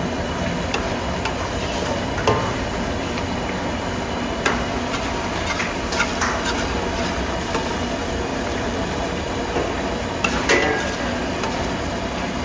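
Steel spoon stirring chicken pieces through a bubbling, sizzling sauce in a wok, with a few sharp clinks of the spoon against the pan.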